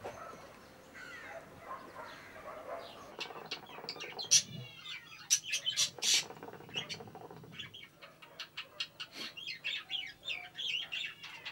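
Small birds chirping and twittering in quick, overlapping calls, busiest from about three seconds in, with a fast run of falling notes near the middle.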